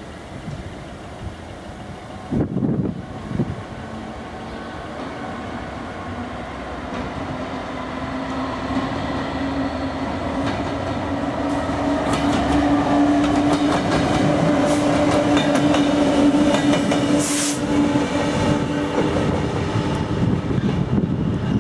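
Class 66 diesel locomotive running light, its two-stroke V12 diesel engine growing louder as it approaches, with a steady low engine note and its wheels clicking over rail joints and points as it passes at low speed.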